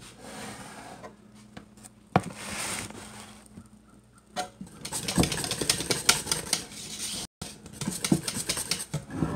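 A scraper working thick, just-boiled pastry cream around the inside of a stainless steel stockpot: a scratchy scraping against the pot's metal wall, with a sharp knock about two seconds in and a dense run of fast scrapes and clicks from about halfway on.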